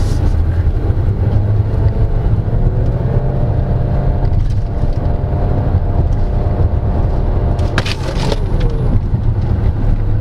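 2024 Dongfeng Aeolus Huge Hybrid accelerating hard from a standstill on a full-throttle 0–100 km/h run, heard from inside the cabin as a loud, steady low drone of its hybrid powertrain and tyres, with a faint whine through the middle. A brief sharp sound comes about eight seconds in.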